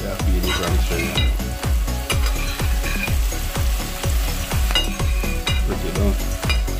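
Food sizzling as it fries in a pot, under background music with a deep bass drum beat, about three hits a second.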